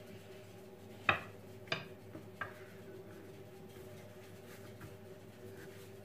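A long thin wooden rolling pin (oklava) knocking lightly on the countertop three times, about a second in and twice more within the next second and a half, as dough is wrapped and rolled on it; a faint steady hum underneath.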